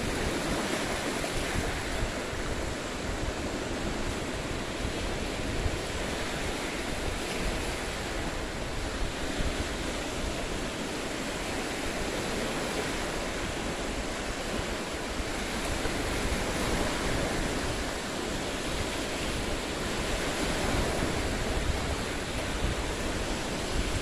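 Lake Huron waves breaking and washing in over a rocky shoreline, a steady rushing wash that swells and eases, with some wind on the microphone.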